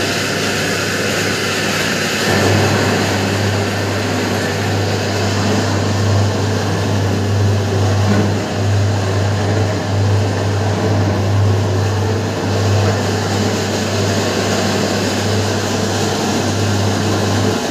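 Large cabinet egg incubator running: a steady loud whir of its air-circulation fans, with a low electrical hum joining about two seconds in.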